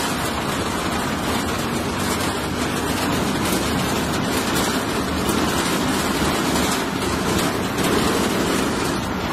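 Covered pickup truck on the move, heard from its open-sided passenger bed: steady engine and road noise with wind rushing past.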